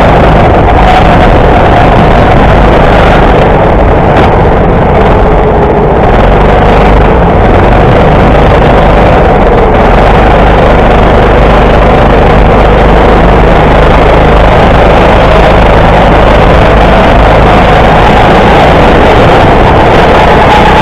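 Go-kart motor running at speed, heard very loud and close from on board the kart. Its note wavers gently up and down over a steady rumble.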